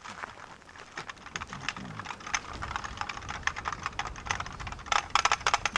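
Rapid, irregular clicking and clattering of keys on a small keyboard, growing denser and louder near the end.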